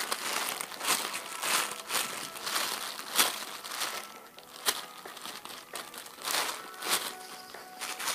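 Irregular crinkling and rustling of plastic as a squishy toy is handled, with a dozen or so sharper crackles spread through, while faint music plays underneath.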